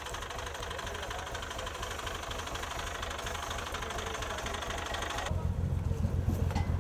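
Tractor engine running steadily. About five seconds in the sound cuts to a louder, deeper engine rumble.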